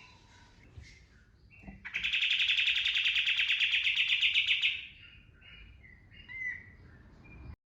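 Kapas tembak songbird singing: scattered short high chirps, then a loud fast rattling burst lasting about three seconds (the prized 'tembakan' shot), then a few more chirps before the sound cuts off abruptly.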